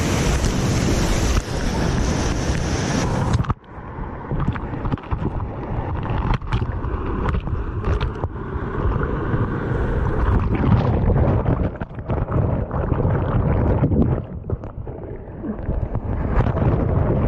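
Whitewater rapid rushing loudly around a kayak. About three and a half seconds in, the sound turns suddenly dull and muffled as the kayak is sucked into a hole and capsizes, and it stays that way as if heard from underwater: churning, gurgling water with many sharp knocks.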